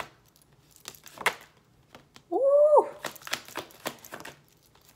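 Tarot deck being shuffled by hand: a single card snap, then a quick run of rapid card clicks in the second half. A short pitched hum-like sound, the loudest thing, rises and falls about halfway through.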